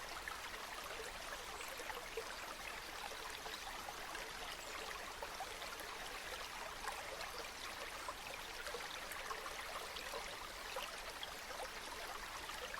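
A small stream running over stones: a steady babble of water, with many small gurgles and splashes.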